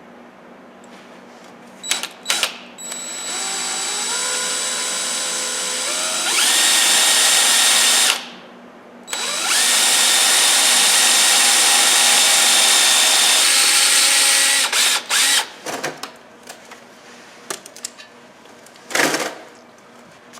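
Electric drill boring into a broken steel exhaust manifold stud seated in a cast iron cylinder head. The motor whine climbs in pitch as it speeds up, then runs steady at full speed, stops briefly about eight seconds in, runs again, and winds down. A few sharp clicks and knocks come before and after the drilling.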